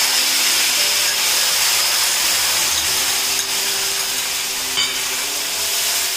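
Tomato puree frying in hot oil in a kadhai, giving a loud, steady sizzling hiss as it spatters and steams.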